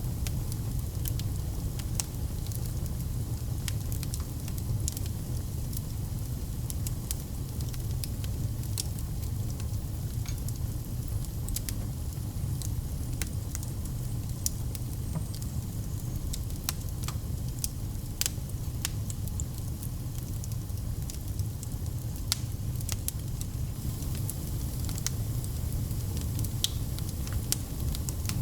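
Wood fire in a fireplace crackling: scattered sharp pops and snaps, several a second and irregular, over a steady low rumble of the flames.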